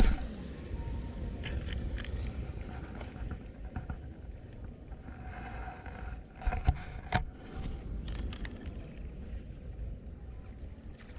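Outdoor pond-side ambience: insects chirring steadily at a high pitch over a low rumble, with a couple of sharp knocks a little past the middle.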